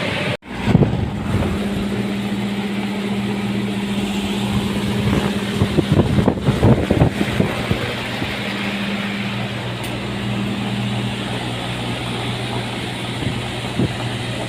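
A steady mechanical hum with a low drone over a haze of noise, broken by a brief dropout about half a second in, with a few knocks a few seconds later.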